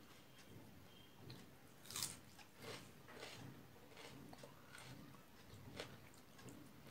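Faint chewing and mouth clicks of a person eating rice and chicken curry by hand, with soft sounds of fingers mixing rice on a plate; the sharpest click comes about two seconds in.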